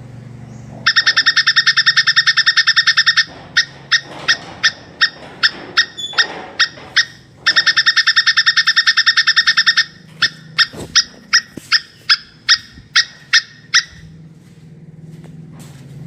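Plantain squirrel's (tupai kelapa) mating call: a fast, high chattering trill of sharp chips lasting about two seconds, then single chips at two to three a second; the pattern repeats once more and the chips slow and stop near the end.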